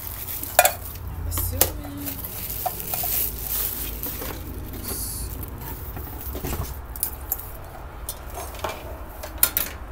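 Plastic wrapping crinkling and rustling as rice cooker parts are unpacked from a cardboard box, with the clinks and knocks of the metal inner pot being handled.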